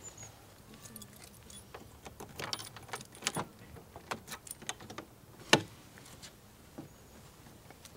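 Scattered small metallic clicks and jangles as a car door handle is worked, with one sharper click about five and a half seconds in.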